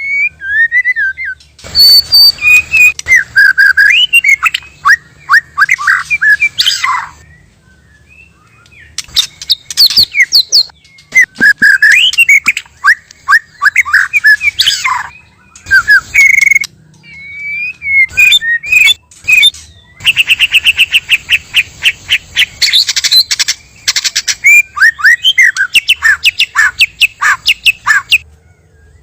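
White-rumped shama song: loud phrases of varied whistles and quick chattering trills, broken by short pauses. Partway through comes a long run of fast, evenly repeated notes.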